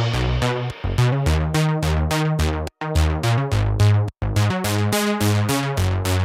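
Electronic background music with a drum-machine beat and synthesizer notes. It cuts out for a moment twice, a little under three seconds in and again about four seconds in.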